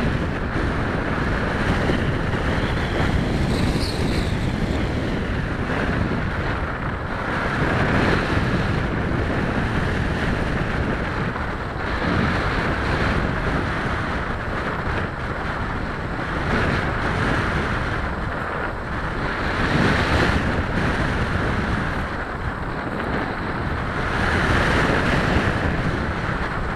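Wind rushing over the onboard camera's microphone on a flying EPP foam FPV model airplane, swelling and easing every few seconds as it flies. About four seconds in, a faint rising whine from the plane's motor comes through.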